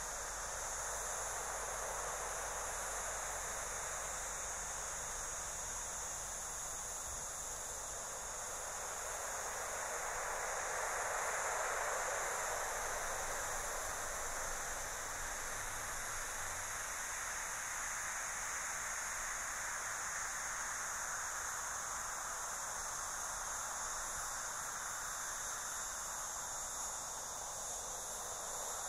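Wind blowing steadily, swelling about a third of the way in and easing back, with a steady high hiss above it.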